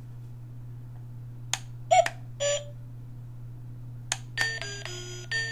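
Digital talking alarm clock being operated: a few button clicks and two short beeps, then, about four seconds in, its electronic ring tone starts, a tune of stepped beeping notes, over a steady low hum.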